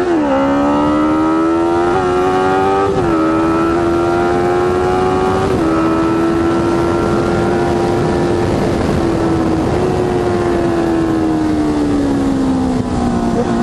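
Honda CB650F's inline-four engine through a Jeskap GP2 R full exhaust, accelerating hard with several quick upshifts in the first six seconds, the pitch dropping at each shift, then holding a steady cruise and slowly easing off near the end. Wind rush runs underneath.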